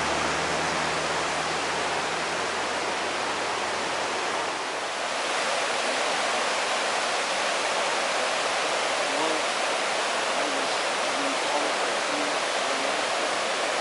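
Steady rush of a fast mountain stream running over rocks. A low steady hum sits under it for the first couple of seconds.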